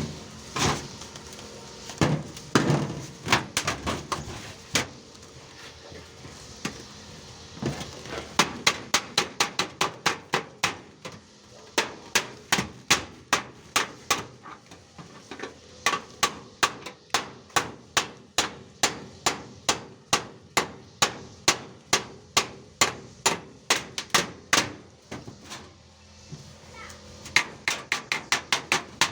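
Hammer blows on a construction site, sharp repeated strikes at about two to three a second in long runs, with brief pauses between runs.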